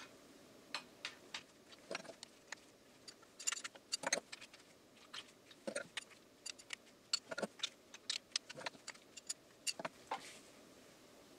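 Irregular sharp metallic clicks and clinks of hand tools working the cylinder bolts on a motorcycle engine, some in quick clusters, stopping about ten seconds in.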